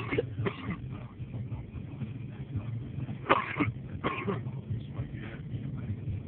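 A person coughing, with two strong coughs about three to four seconds in, over a steady low hum.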